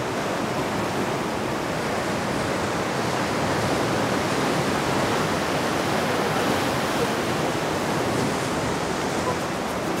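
Sea surf washing against a rocky shore: waves breaking at many points at once, blending into one steady, even wash.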